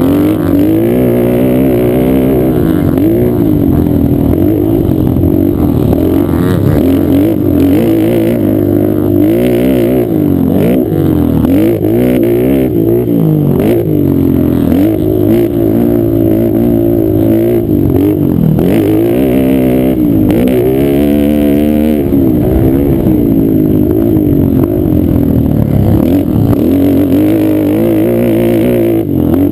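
Race quad (ATV) engine heard from a camera mounted on it, running hard on a dirt track. The pitch climbs and drops over and over as the throttle is worked through turns and jumps.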